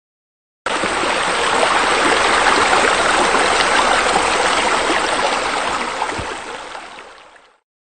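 Steady rush of running water that cuts in abruptly under a second in and fades away over the last second and a half.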